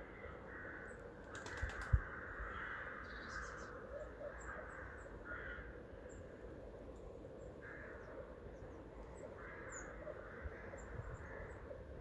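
Birds calling in the background: a string of harsh, rough calls in short bursts, with faint high chirps of small birds. A single low thump about two seconds in.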